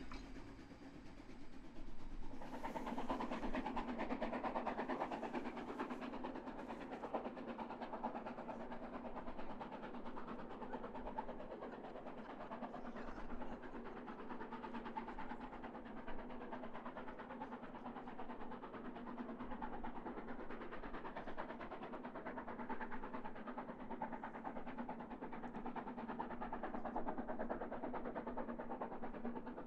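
Harz narrow-gauge steam locomotive working a train uphill under heavy exhaust, heard at a distance. It comes in suddenly about two seconds in and then runs steadily.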